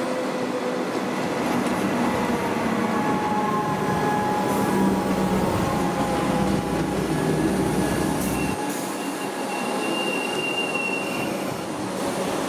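Train at a station platform, running with a low rumble under several steady, slightly wavering high-pitched squeals from its wheels. The rumble drops away about eight and a half seconds in, and a higher squeal sounds toward the end.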